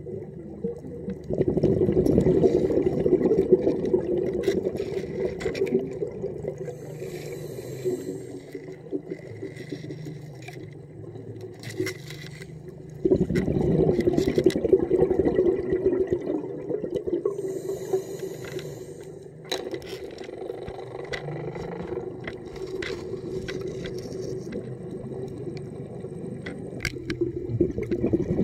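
Diver breathing through a regulator, heard underwater: three loud bubbling exhales, each lasting a few seconds, alternate with two shorter hissing inhales, about one breath every twelve seconds. Scattered sharp clicks are heard between the breaths.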